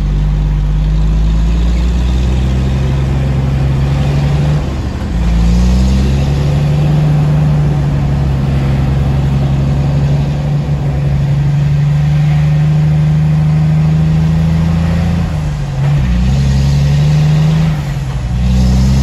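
Tractor-trailer's diesel engine heard from inside the cab, running under load as the truck climbs a grade. The engine note stays steady but dips and climbs back about a quarter of the way in and twice more near the end.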